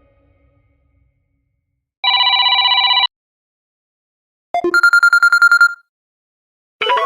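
Electronic phone ring tones from a Tizen OS phone: a rapid trilling ring of about a second, two seconds in, then after a pause a second, higher trilling ring opened by a short low blip. A new melodic tone starts right at the end.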